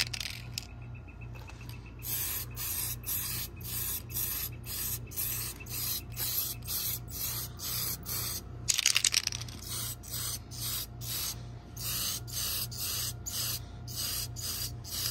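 Aerosol spray paint can spraying copper-orange paint onto the inside of a clear plastic RC truck body in short hissing bursts, about one or two a second, with one longer, louder spray near the middle. This is the first coat going on.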